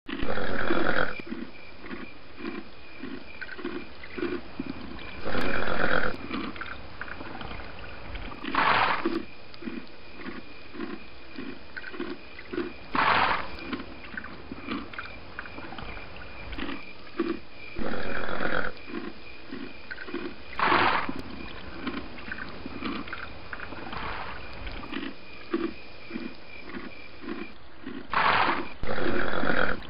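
Donkeys braying. There are loud brays every few seconds, some about a second long and some shorter, with a rhythmic low pulsing between them.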